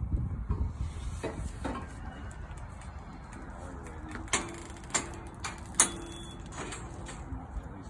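Steel cattle squeeze chute clanking and rattling, with scattered metal knocks. Three sharp clanks, each ringing briefly, come a little under a second apart about halfway through.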